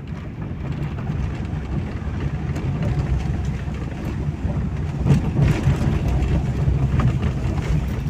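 Car cabin road noise: the engine and tyres rumble steadily at low speed on an unpaved dirt road, with a couple of faint knocks about five and seven seconds in.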